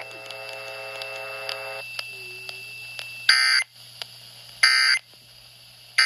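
Emergency Alert System end-of-message data bursts played through a radio's speaker: short, harsh, screeching bursts about 1.3 seconds apart, two in full and a third starting at the very end. They follow a steady buzzing tone that lasts about two seconds and then stops.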